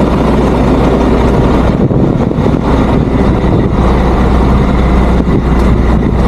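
Heavy diesel truck engine idling close by, a steady rough rumble with a constant low hum.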